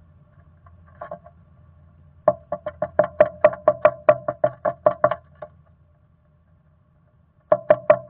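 Black-capped chickadee pecking at the wooden floor of a nest box: a fast run of sharp knocks, about six a second, starting about two seconds in and lasting some three seconds, then a second run starting near the end.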